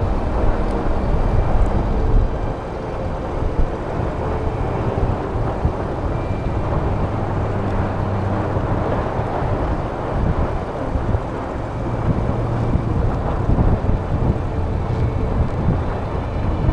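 Jeep engine running under way off-road, with a steady rumble of tyres and drivetrain; the engine pitch shifts a little now and then.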